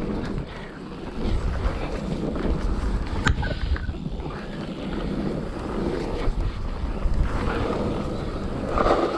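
Wind buffeting the microphone over the rumble of a full-suspension mountain bike rolling fast down a dirt trail, with a sharp knock about three seconds in.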